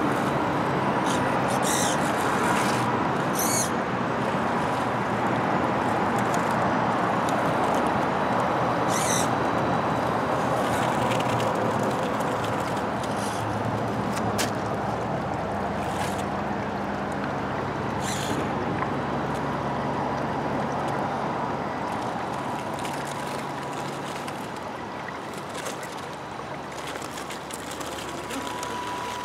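Shallow meltwater stream running, with the thin steady whine of a radio-controlled crawler's electric motor and gears as the truck drives through the water and up the snowy bank. A few short, sharp clicks come from the tyres and chassis on rock.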